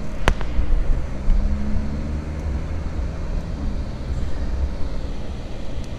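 Car cabin noise while driving: a steady low rumble of engine and tyres on the road, with one sharp click shortly after the start.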